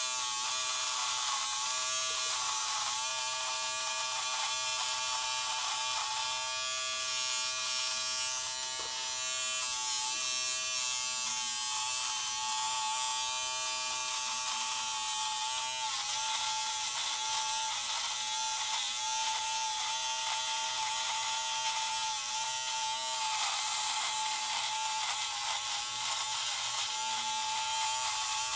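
Braun XT5 shaver-trimmer buzzing steadily as it is run over facial stubble, its pitch wavering slightly as the head moves across the skin.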